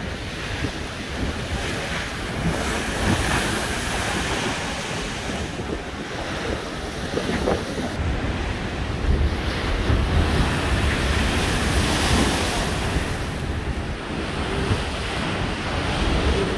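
Storm surf breaking against a seafront embankment in heavy swells, the rush of water rising and falling, with strong wind buffeting the microphone.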